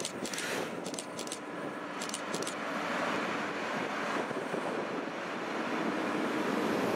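Two coupled V100-type diesel locomotives running light past the platform, their engines droning and growing louder as they come by. A few sharp clicks sound in the first couple of seconds.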